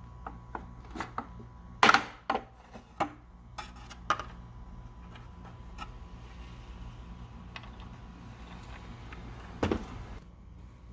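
Plastic car trim panel being pried off by hand: a run of sharp clicks and snaps as its push clips pop loose, the loudest about two seconds in, then a quieter stretch and another clatter of plastic near the end.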